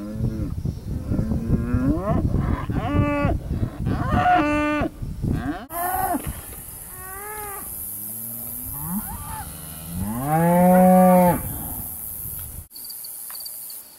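Cattle mooing: a run of repeated calls that rise and fall in pitch, some overlapping, with one long, loud moo about ten seconds in.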